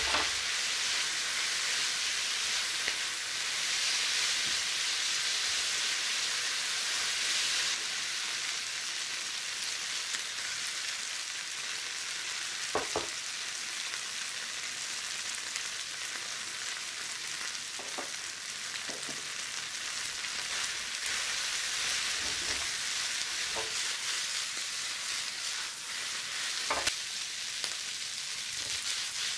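Yakisoba noodles, pork and vegetables frying with a steady sizzle in a non-stick frying pan as they are stir-fried with chopsticks. The sizzle is a little stronger for the first several seconds, and a few light knocks sound now and then.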